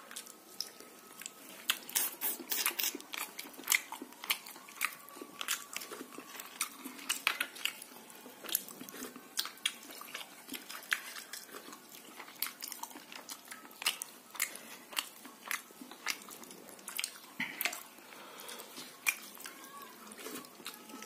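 Close-up eating sounds: chewing with many sharp, irregular clicks, several a second, as a man eats rice and curry by hand from a stainless steel plate.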